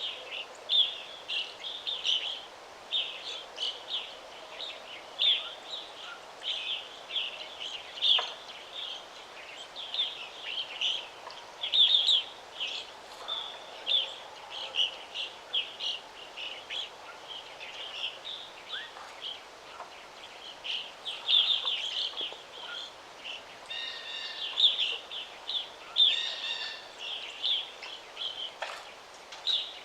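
Several songbirds chirping in quick, repeated short notes over a faint steady background hiss.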